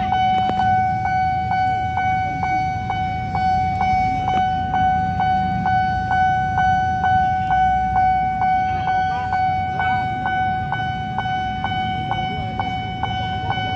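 Level-crossing warning bell ringing steadily, a repeated electronic ding at about three strikes a second, signalling an approaching train as the crossing barrier closes. Low rumble of idling road traffic underneath.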